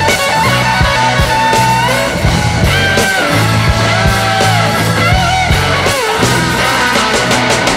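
Rock music with a steady drum beat and bass, and a lead line of gliding, bending notes.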